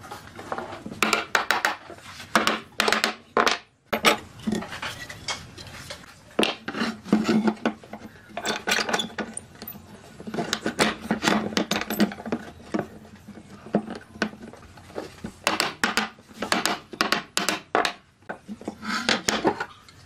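Hand tools knocking and scraping on pine table-leg parts on a wooden workbench: irregular clusters of sharp taps and clatters with rough rubbing between them.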